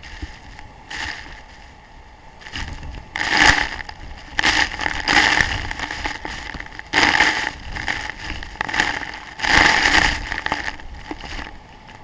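Rushing noise of a large waterfall's spray and wind hitting a small camera's microphone. It swells and fades in several loud gusts.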